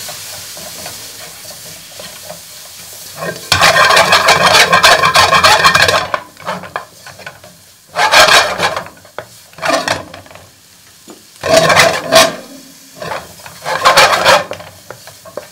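Chicken stir-fry sizzling in a hot pan while it is stirred and scraped with a utensil: a long spell of stirring from about three and a half seconds in, then four shorter stirs.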